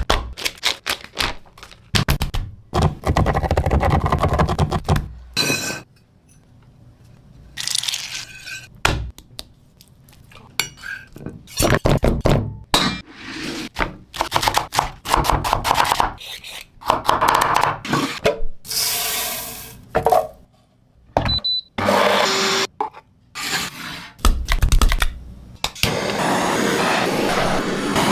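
A run of food-preparation sounds in quick succession: knocks and thunks, utensils and dishes clattering and scraping, and short bursts of noise, ending in a steady hiss like food frying in a pan.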